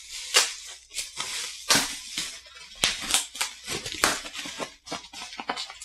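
Plastic bubble wrap crinkling and crackling as it is pulled open and unwrapped by hand, in a string of irregular crackles.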